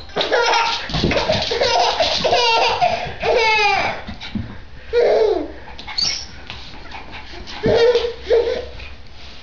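Baby laughing in repeated bursts, densest in the first four seconds, with a few shorter bursts about five and eight seconds in.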